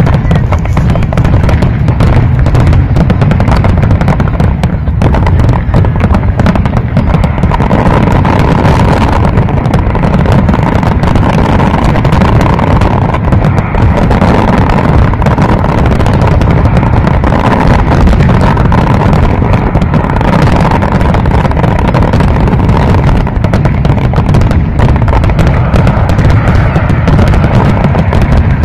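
A fireworks display: dense, continuous bangs and crackles of shells bursting overhead, with a heavy, sustained low rumble and no gaps.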